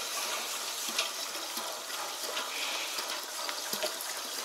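Fuel running from a drum through a hose into a plastic jerry can: a steady gushing, splashing fill with a few faint clicks.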